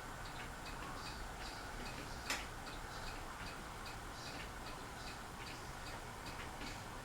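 Fasco Charleston ceiling fan running, with a steady faint whoosh and light ticking about three or four times a second. One sharper click comes about two and a half seconds in.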